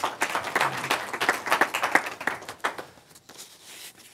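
An audience applauding: dense, irregular clapping that thins out and dies away about three seconds in.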